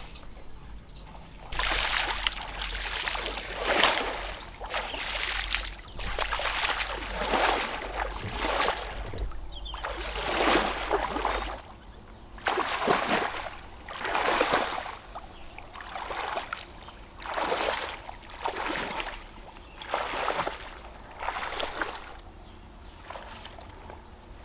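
Water splashing in a run of repeated strokes, roughly one every second or so.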